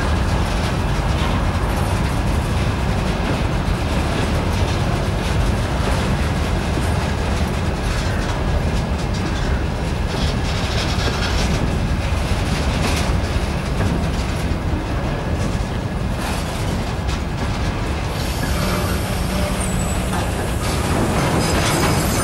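Freight train of open gondola wagons rolling past: a steady rumble of wheels on the rails, broken by short knocks as the wheels cross rail joints.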